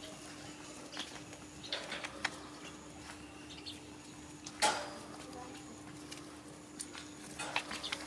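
Puppies suckling at their mother's teats: scattered short wet sucking and smacking clicks, the sharpest about halfway through, over a faint steady hum.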